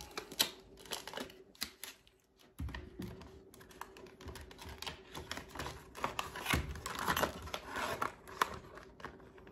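Stiff clear plastic blister packaging being handled and flexed, giving irregular crackles and clicks, with a short pause about two seconds in.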